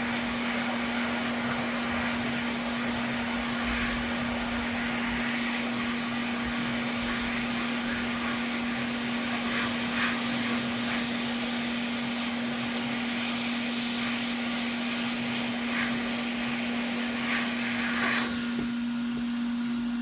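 A small electric motor running steadily with a constant hum and a rush of air, as from a vacuum or electric duster used to clean out a console. A few faint ticks come through partway.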